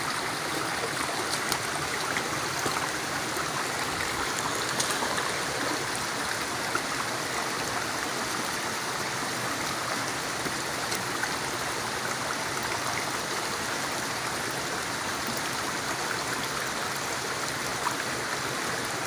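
Shallow rocky forest stream running steadily over stones and a small cascade, with a couple of faint knocks.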